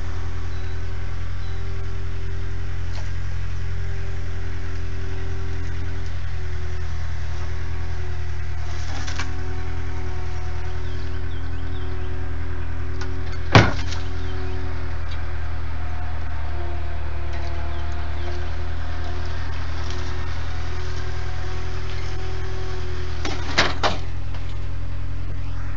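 New Holland skid steer loader running steadily while it lifts a wall frame with its bucket, a low engine drone with a whine that shifts in pitch now and then. A sharp knock sounds about halfway through, and two quick knocks near the end.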